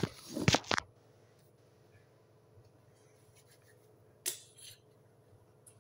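Rustling and knocks of a phone camera being handled on a kitchen counter, then quiet with a faint low hum; about four seconds in, a brief rub of hands together.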